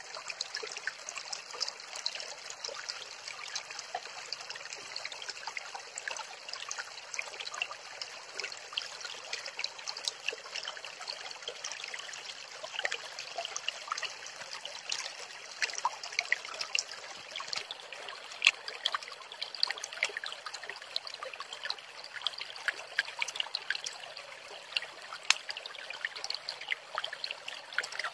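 Small rocky stream trickling and babbling steadily, with scattered short sharp clicks and taps throughout, one standing out about halfway through.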